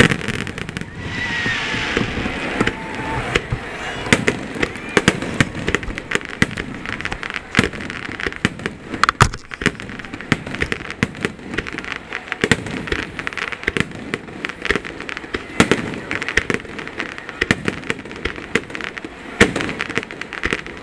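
Fireworks bursting in rapid succession: a dense, irregular stream of bangs and crackles, with a few louder bangs standing out.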